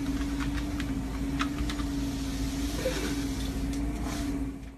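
Weslo treadmill running: a steady motor hum over the rumble of the moving belt, with a few faint ticks.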